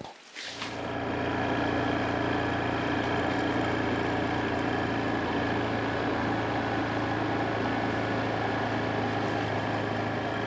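Small ATV engine running at a steady, even speed while riding along a dirt track, cutting in about half a second in.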